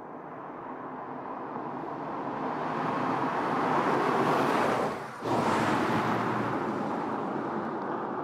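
SEAT Leon ST estate car driving past: tyre and engine noise swelling as it approaches, loudest about four to five seconds in, then easing off as it pulls away. The sound drops out for a moment just after five seconds.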